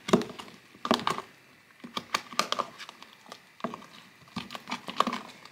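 A metal spoon stirring thick, sticky slime in a plastic tub, with irregular knocks and scrapes against the tub's sides.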